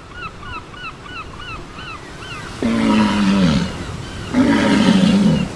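Animal calls: a steady run of short, high chirping calls, about two or three a second, with two long, rough calls of about a second each cutting in about two and a half and four and a half seconds in, each falling at the end, the loudest sounds here.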